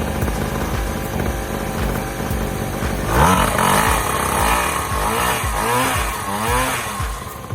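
Mini dirt bike's small engine running after assembly, steady at first, then revved several times in quick rising-and-falling sweeps from about three seconds in. The sound cuts off abruptly near the end.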